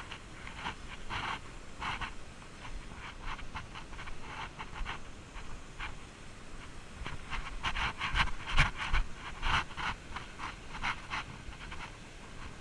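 A person breathing hard while hiking a woodland trail: quick breathy puffs, several a second, busiest around eight seconds in, with a few dull footfalls.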